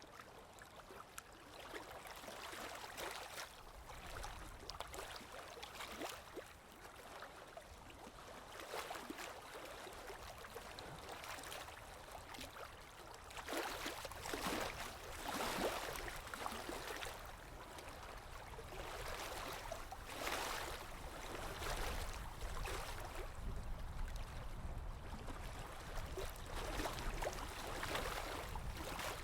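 Ocean waves washing in: a steady hiss of water that swells and falls back every few seconds, with the biggest surges about halfway through.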